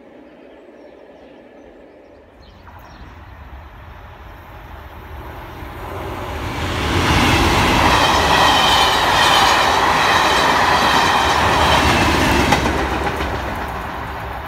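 Class 37 diesel-hauled passenger train passing: the locomotives' English Electric V12 engines and the wheels on the rails build up from about two seconds in, run loud for about five seconds as the train goes by, then fade away.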